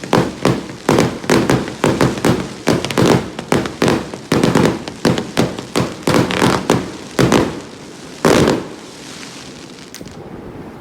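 Aerial fireworks going off in a rapid barrage of loud bangs, about three a second, ending with one last big burst about eight seconds in and a fading hiss after it.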